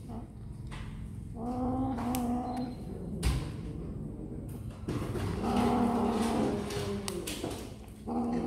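A cat giving long, low, moaning growls over a piece of raw meat, three of them: one about a second and a half in, a longer one of about two seconds from about five seconds in, and another starting near the end. A short knock comes about three seconds in.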